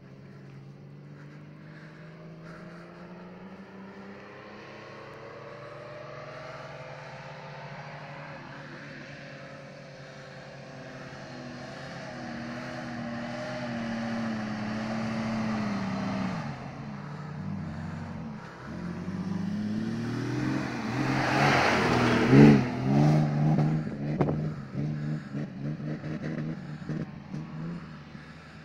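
Off-road 4x4 engine working hard up a sand dune. Its pitch climbs slowly, dips about halfway, then rises into hard revving with a loud rush of noise about three-quarters of the way through. A few quick revs follow, then it eases off near the end.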